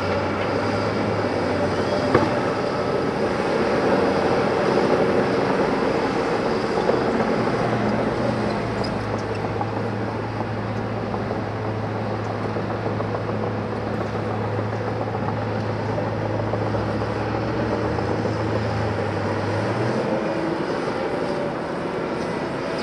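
Diesel engines of heavy construction machinery (bulldozer, excavator, dump truck) running steadily, with a deep engine drone that stops about twenty seconds in.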